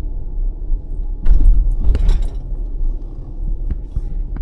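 Low rumble of a car, with a few sharp knocks and clicks about a second in and again near the end.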